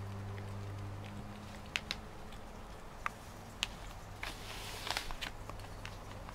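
A few faint, sharp clicks, then a short papery rustle about four to five seconds in as a cat shifts its paws on a sheet of newspaper. Under them a low steady hum fades out in the first second or two.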